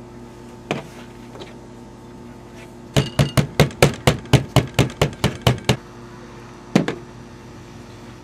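Meat mallet pounding floured beef round steaks on a metal sheet pan to work the flour in and tenderize the meat: a single blow, then a rapid run of about fifteen blows over two and a half seconds, and one last blow.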